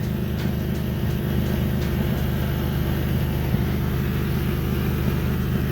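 Car engine idling steadily, heard from underneath at an exhaust leak where new test pipes join the exhaust, with exhaust gas escaping at the joint. The owner suspects the leak comes from test-pipe bolts not tightened enough on the new gaskets.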